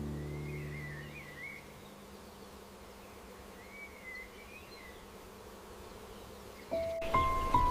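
Background music fades out, leaving faint garden ambience: an insect buzzing and a few soft bird chirps. Music comes back in near the end.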